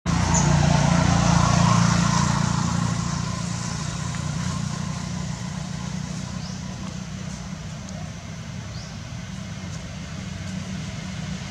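Steady low hum of a motor vehicle engine, loudest in the first two seconds and then slowly fading, with a few faint high chirps.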